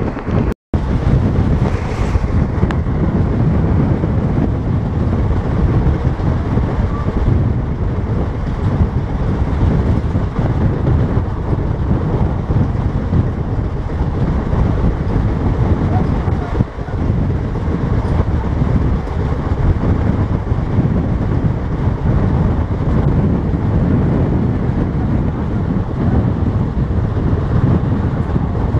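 Steady rumble of a passenger express train running on the rails, heard from aboard a coach: wheel and track noise throughout, broken once by a split-second cut to silence just after the start.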